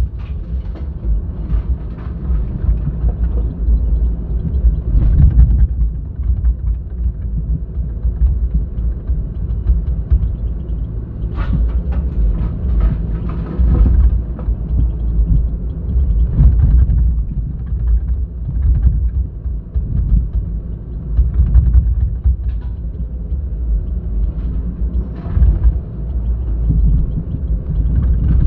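Excavator's diesel engine running under load with a low rumble, with occasional clanks and knocks from the work.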